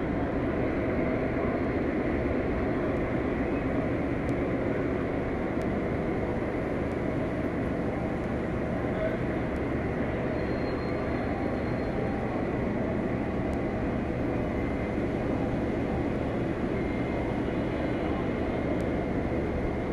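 O gauge model trains running on a large layout: a steady, even rumble of wheels on track with the hum of the hall behind it.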